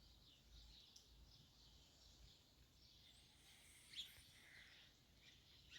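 Near silence with faint birds chirping, short high chirps scattered throughout and one sharper, louder chirp about four seconds in.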